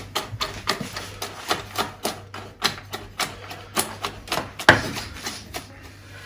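Chef's knife chopping nuts on a wooden cutting board: a steady run of sharp knocks, about three a second, as the blade strikes through the nuts into the board.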